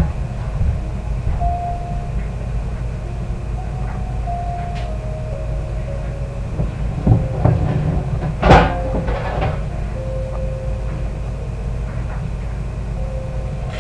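Steady low rumble with faint piano notes over it, and a few sharp clattering knocks about eight and a half seconds in.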